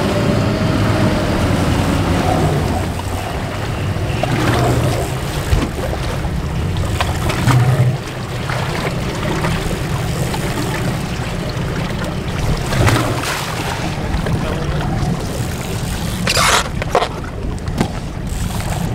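Boat engine idling with a steady low hum, under wind and water noise along the hull. A short rush of noise comes near the end.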